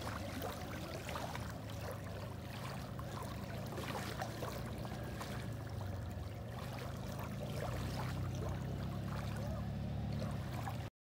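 Small waves lapping at the water's edge: a steady wash with many little splashes and a low rumble underneath. The sound cuts off suddenly near the end.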